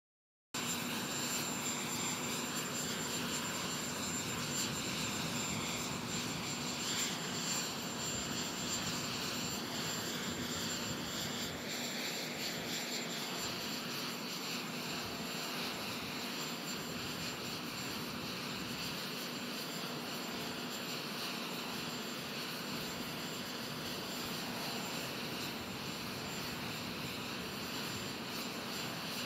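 Steady jet aircraft noise: an even rush with a thin, steady high whine and a faint low hum, unchanging throughout.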